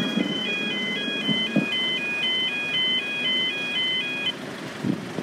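Level crossing warning alarm sounding two alternating electronic tones, about two cycles a second, that stops about four seconds in. A low rumble with a couple of knocks runs underneath.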